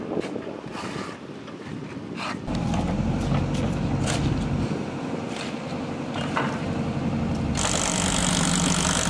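Construction-site sounds: scattered knocks and scrapes of hand work, then a steady low engine hum from about two and a half seconds in. Near the end a Volvo backhoe loader's diesel engine is heard running.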